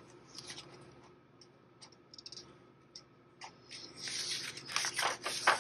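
Paper page of a hardcover picture book being handled and turned: a few faint taps and rubs of fingers on the page, then a louder scratchy paper rustle and slide in the last two seconds as the page turns.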